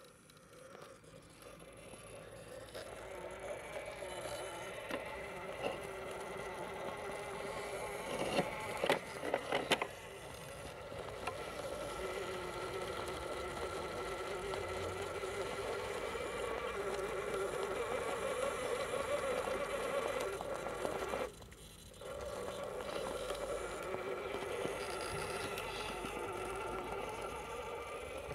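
Electric motor and gearbox of a scale RC crawler whining steadily as the truck creeps up a steep climb under load. A few sharp clicks and knocks come a third of the way in as the tyres and chassis scrabble over the obstacles. The whine cuts out briefly about three quarters of the way through, when the throttle is let off, then picks up again.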